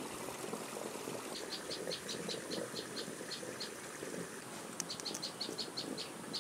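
An insect chirping in a run of short, high, evenly spaced notes, about five a second. It starts about a second in, pauses briefly, and then resumes.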